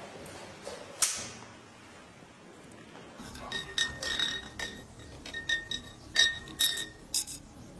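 A single sharp click, then an irregular run of light clinks, each with a short ringing tone, as of something hard striking glass.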